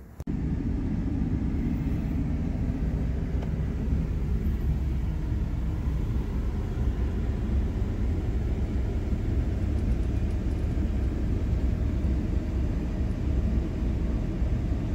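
Low, steady rumble of a 2013 Ford F-150 pickup running, heard from inside its cab.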